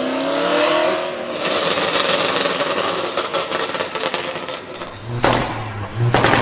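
A car engine revs up, its pitch rising, then a dense run of exhaust pops and crackles follows for several seconds. About five seconds in the sound changes to a deep steady hum with two loud bangs about a second apart.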